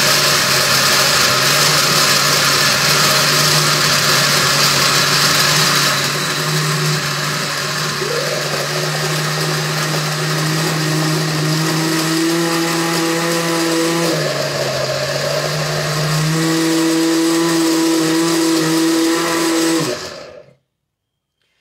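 Countertop blender with a glass jar running continuously, grinding pecans in a little milk. The motor note shifts a few times as the load changes, and it switches off about 20 seconds in.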